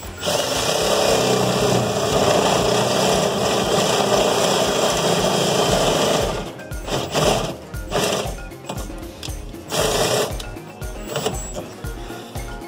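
Cordless drill boring through the car's sheet-steel firewall: a steady run of about six seconds, then a few short bursts as the trigger is pulsed.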